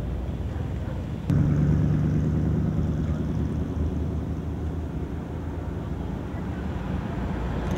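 Classic car engines running as the cars drive past, a low, steady engine sound that jumps louder about a second in.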